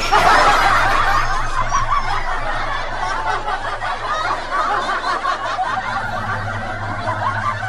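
Canned laughter: many people snickering and chuckling at once, starting suddenly and then going on steadily.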